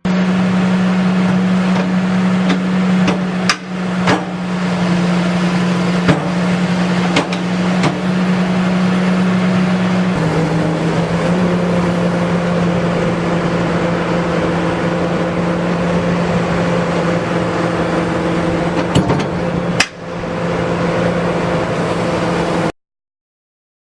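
Excavator engine and hydraulics running with a steady hum that shifts slightly in pitch about ten seconds in. Several sharp metal knocks come through it as the quick coupler's front lock snaps onto the attachment pin. The sound cuts off abruptly near the end.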